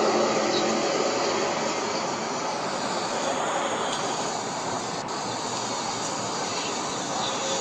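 Loud, steady droning rumble that seems to come from the sky, the unexplained 'strange sound' being recorded, with faint held tones in it that fade out over the first second or so.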